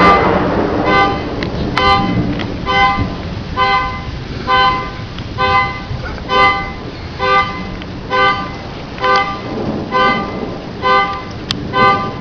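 Car alarm sounding its horn in short, even honks, about one a second. At the start the rumbling tail of a thunderclap, the likely trigger, dies away under it.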